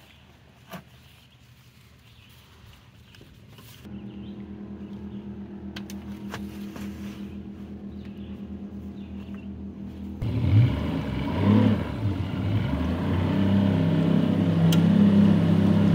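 Jon boat's small outboard motor: a steady idle comes in about four seconds in, then the motor is throttled up and runs louder and rougher from about ten seconds as the boat gets under way.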